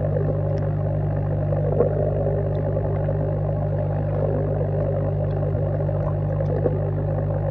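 Steady low hum of an aeration air pump with the bubbling of its air stone, heard underwater.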